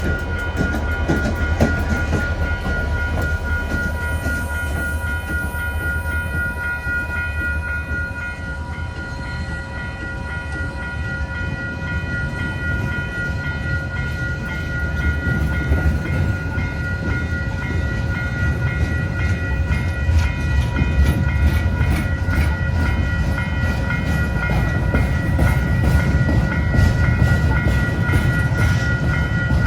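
CPKC welded-rail train rolling past: a steady low rumble with steady high-pitched tones over it, and wheel clicks that grow louder in the second half.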